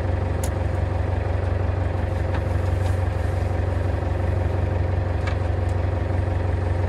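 Fishing boat's engine idling, a steady low hum, with a few faint light ticks over it.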